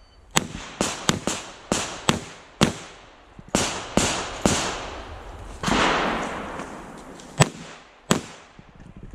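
Rapid string of .45 ACP revolver gunshots from a Smith & Wesson 325 Thunder Ranch, each a sharp crack with a ringing tail. Seven come quickly in the first few seconds, three more follow about a second apart, and after a short gap with a brief rushing noise, two final shots come near the end.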